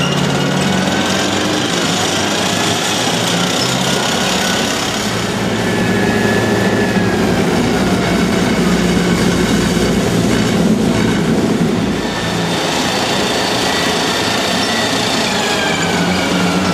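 Tracked M109 self-propelled howitzers driving: steady diesel engine noise with the clatter of steel tracks and the high, wavering squeal of track links and road wheels.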